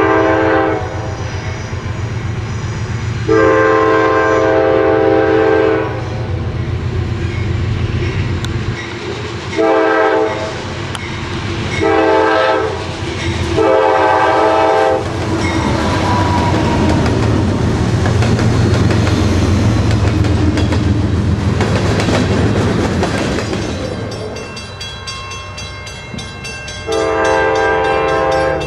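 Norfolk Southern diesel freight locomotives sounding a multi-chime air horn in a series of long and short blasts, then passing close by with engines running and wheels clattering over the rails. Near the end another train's horn sounds one long blast.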